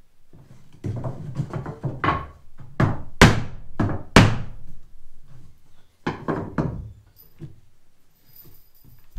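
Hammer striking the edge of a 6-inch car siding floorboard to drive it tight against the laid boards: a run of thuds on wood, the two hardest about three and four seconds in, then a few lighter knocks around six seconds.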